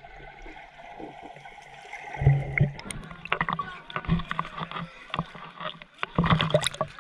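Waterpark water splashing and sloshing, with irregular louder splashes or knocks and indistinct voices in the background.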